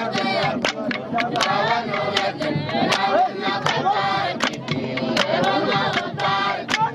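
A crowd of young people singing together, with steady hand claps about twice a second keeping the beat.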